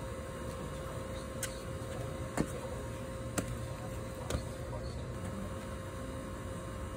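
Four sharp impacts about a second apart as a man's sneakers strike the concrete during high leg kicks, over a steady background hum with a faint continuous tone.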